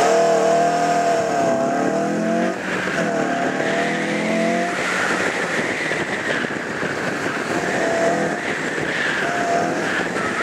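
2005 Honda S2000's 2.2-litre four-cylinder engine pulling away hard from a standstill, revs climbing and falling as it is driven through the course. Through the corners there is a wavering squeal from the tyres.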